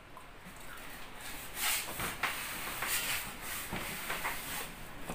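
Rustling and a few light knocks as a person gets up and moves about close to the microphone, starting about a second in.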